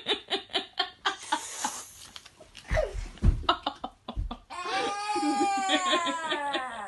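A small child giggling in quick bursts, then a few dull thumps as the child slides off a bed onto the carpet. Then a long, drawn-out vocal moan from the child that slowly wavers and falls in pitch, play-acting a fall.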